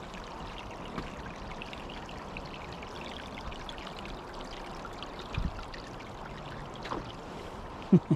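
A small creek's water running steadily, with a few short low thumps, the loudest near the end.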